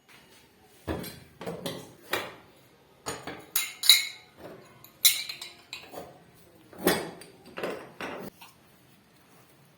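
Hard kitchen objects clattering and clinking together in a quick irregular series of knocks, some with a brief metallic ring, stopping a little over eight seconds in.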